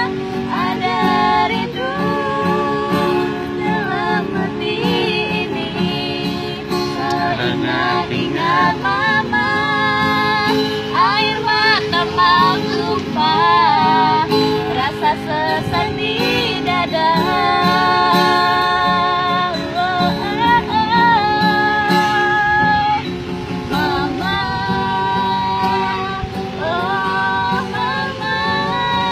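A woman singing a melody to guitar accompaniment, her voice gliding and bending between notes over held guitar chords.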